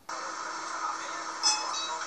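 Metro car interior at a station: steady train noise with a faint steady hum, and a brief bright chime ringing about one and a half seconds in.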